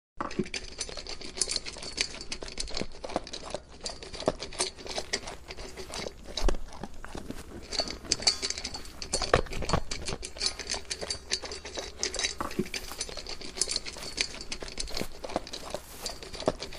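Bactrian camels grazing, tearing off and chewing grass: a dense, irregular run of crisp crunching clicks.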